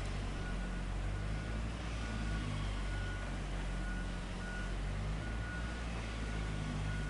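Heavy diesel machinery running with a steady low hum, over which a warning beeper sounds short high beeps over and over, the alarm of a heavy vehicle or crane in motion.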